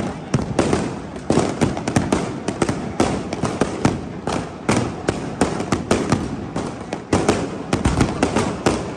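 Aerial fireworks going off: a dense, irregular run of sharp bangs and crackles, several a second.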